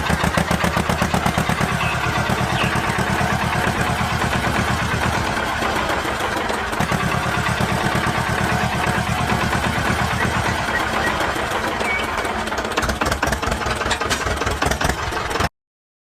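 Engine running with a fast, even chugging beat, cutting off abruptly near the end.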